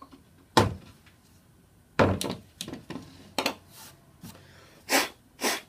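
Knocks and clatter of clamps and a plastic pocket hole jig being handled on a wooden workbench as the clamps are released and the jig is taken off the board, with two short scraping sounds near the end.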